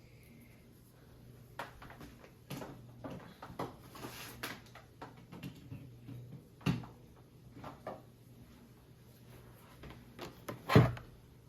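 Handling noises while a new laptop's charger is being plugged in: scattered clicks and knocks, with one louder thump near the end.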